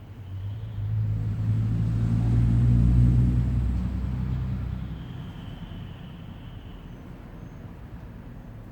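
Low engine rumble of a passing vehicle, swelling to its loudest about three seconds in, then fading away. Faint high insect chirping is heard before and after it.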